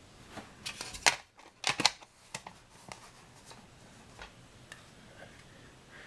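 Handling noise of plastic alarm parts: a cluster of sharp clicks and rustles in the first two seconds, then a few faint ticks.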